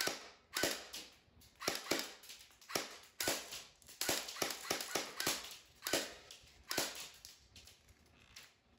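Electric airsoft rifle (AEG) firing a string of sharp shots, some singly and some in quick runs of several, stopping shortly before the end.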